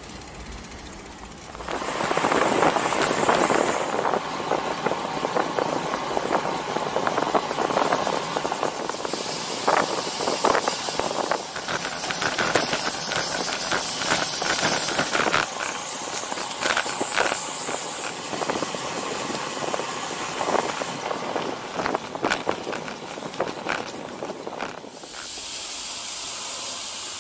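Wind noise and road noise on the microphone of a camera riding on a moving road bicycle, full of crackles and clicks. The sound changes abruptly several times as short clips follow one another.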